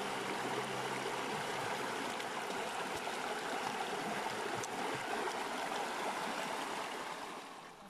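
Shallow, clear river running over rocks: a steady rush of flowing water that fades out near the end.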